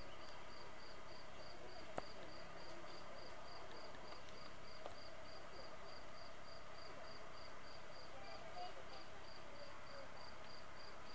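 A cricket chirping steadily, a little over three short, high chirps a second, over faint outdoor background noise, with a single sharp click about two seconds in.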